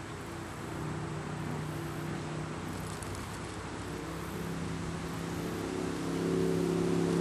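An engine running steadily, growing louder over the last couple of seconds.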